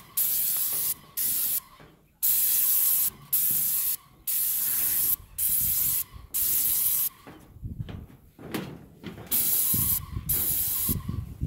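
Airless paint spray gun hissing in about ten short bursts, each half a second to a second long, as the trigger is pulled for separate passes across the roof. Some low rustling and knocking from handling comes about two-thirds of the way in.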